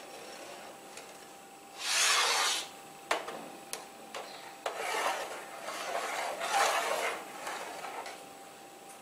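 Long metal spoon stirring curdled milk, chhena curds in whey, in a large aluminium pot: several scraping, swishing strokes, the loudest about two seconds in, with a couple of sharp clicks of metal on the pot.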